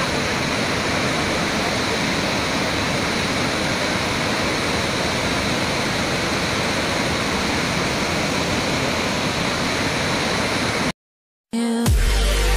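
Water pouring through a concrete dam's open spillway gates: a steady, unbroken rush. It cuts off about 11 seconds in, and after a brief silence music begins.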